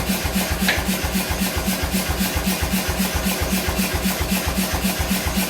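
A machine running with a steady, even thump of about five beats a second over a constant noisy hum.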